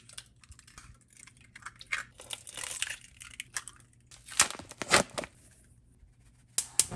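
Eggshells cracking and crunching as raw eggs are broken one after another into a stainless steel saucepan: a string of sharp cracks and crunches at irregular intervals.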